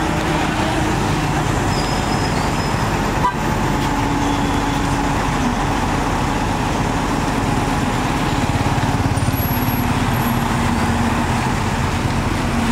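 Heavy diesel engine of a truck crane running steadily while hoisting a wrecked truck, with one short knock about three seconds in.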